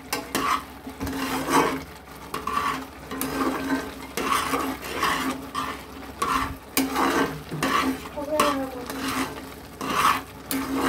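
Metal spatula stirring and scraping thick, grainy kalakand mixture in ghee against a metal pan, in repeated strokes about one or two a second. The mixture has cooked down far enough to come away from the bottom of the pan.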